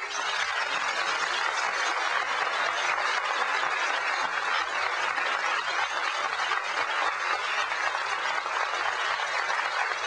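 Audience applauding steadily, with many hands clapping at once.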